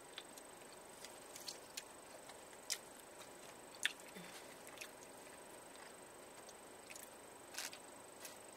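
Quiet eating sounds: chewing of fries with dressing and gravy, with scattered light clicks and taps of plastic forks against styrofoam takeout containers, the sharpest about four seconds in.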